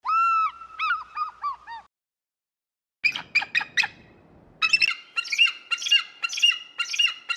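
Bird calls in three separate bursts: first a run of arched, squeaky call notes that fall away over about two seconds, then after a silent gap a quick run of sharp chirps, then a string of calls repeated about twice a second.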